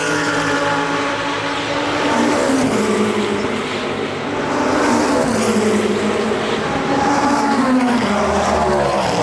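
IMSA race car engines running hard, several overlapping, their pitch rising and falling as the cars accelerate, shift and lift off.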